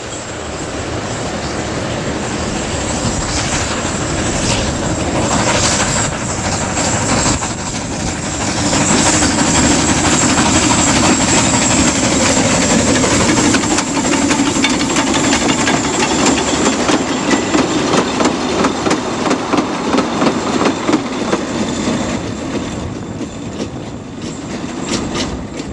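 Andrew Barclay narrow-gauge steam locomotive hauling its carriages past on the rails, a continuous running noise that grows loudest about a third of the way in as the train passes, then slowly fades as it draws away.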